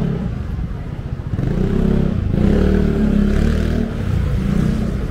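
A motor vehicle's engine passing close by, building up about a second and a half in and easing off near four seconds.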